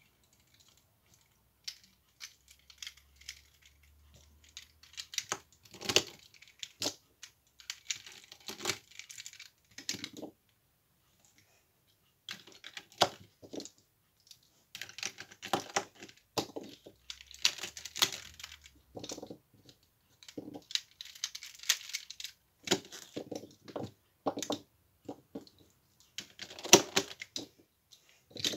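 Plastic pieces of a taken-apart 3x3 Rubik's cube clicking and clattering as they are picked up and pushed back into place on the cube, in quick runs of clicks with short pauses between them.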